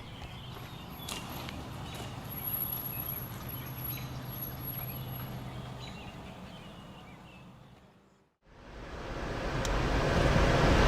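Low, steady vehicle hum with cab noise that fades out to a brief silence about eight seconds in. A loud rushing noise like storm wind then swells up quickly.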